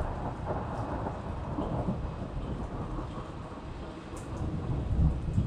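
Thunder rumbling over steady rain falling on pavement and puddles, the rumble swelling louder near the end.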